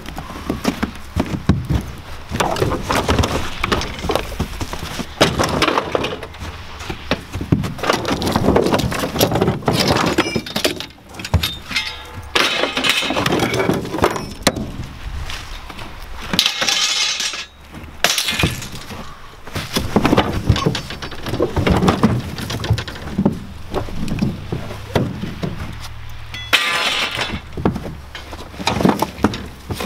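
Scrap metal being thrown out of a pickup truck bed onto a scrap pile: repeated, irregular clanging and crashing of metal pieces, with a couple of short pauses.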